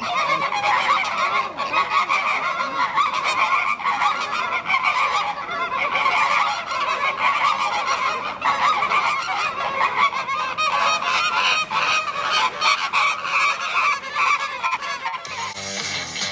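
A flock of flamingos honking, many goose-like calls overlapping in a constant chatter, until it gives way to music about a second before the end.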